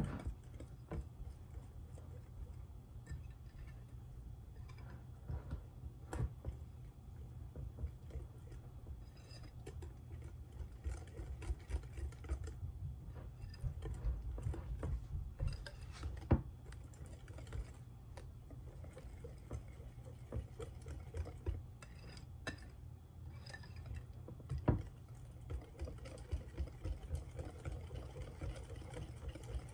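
Wire whisk beating thick clafoutis batter in a glass bowl: a rapid, irregular run of light ticks as the wires strike the glass, over a steady low hum.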